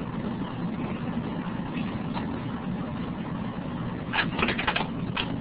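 Steady low hum and hiss of the webinar's audio feed, with a quick run of about half a dozen sharp clicks about four seconds in and one more click near the end.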